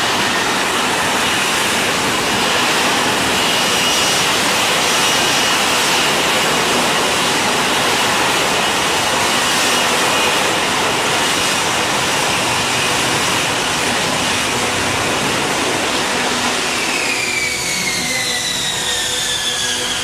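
F-35B jet engine running loud and steady with a high whine. In the last few seconds the whine glides steadily down in pitch.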